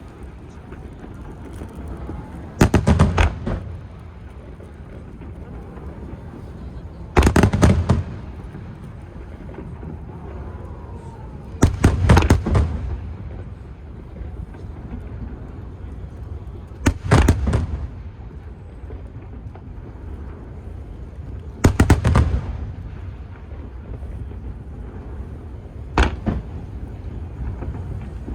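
Fireworks shells bursting overhead: six short clusters of sharp bangs, about one every four to five seconds, over a steady low background din.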